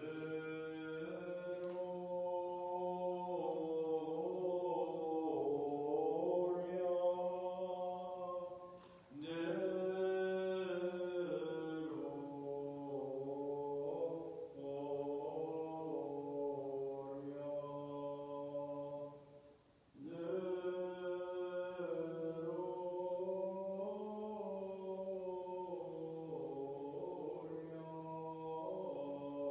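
Armenian Church liturgical chant sung, a slow melody over a held low note, with two short pauses for breath about 9 and 19 seconds in.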